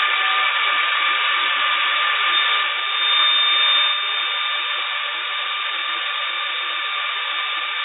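Doosan CNC turning center power skiving a workpiece: a steady machining whine of several held tones over a hiss of cutting and coolant spray, a little louder for about a second around three seconds in.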